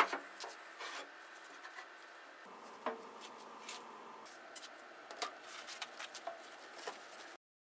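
Faint rubbing and handling noises as gloved hands wipe down a cast-iron lathe bed with shop towels, with a few small clicks and knocks. A single sharp tick right at the start is the loudest sound.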